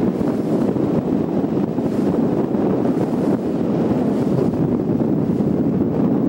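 Steady wind buffeting the microphone aboard a boat under way, a constant low rush mixed with the wash of water.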